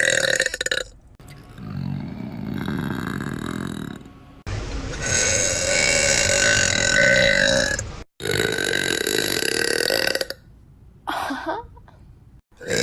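A woman burping over and over: a long, loud burp dies away about half a second in, then after a quieter stretch come a long loud burp of about three and a half seconds, another of about two seconds, and a short one near the end.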